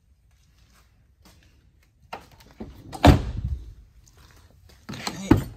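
Rear side door of a 1996 Buick Roadmaster Estate wagon swung shut with a heavy thunk about three seconds in, after a couple of light clicks. Another, shorter door knock comes near the end.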